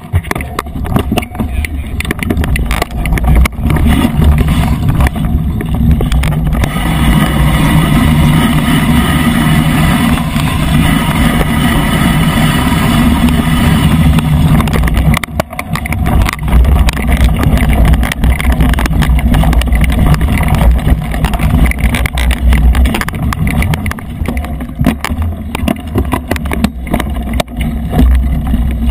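Mountain bike ridden over rough dirt singletrack, heard from a camera on the rider or bike: wind buffeting the microphone as a loud, steady rumble, with sharp knocks and rattles from the bike over roots and bumps. A buzzing tone runs through the middle stretch.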